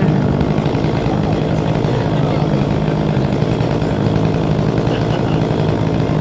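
Gas chainsaw engine running at a steady speed, without revving.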